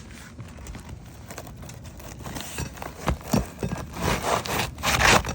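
Steel flat bar scraping and prying under asphalt roof shingles, with irregular knocks and crackling tears that come thicker and louder in the second half. The shingles are brittle and delaminating, so they tear instead of lifting cleanly.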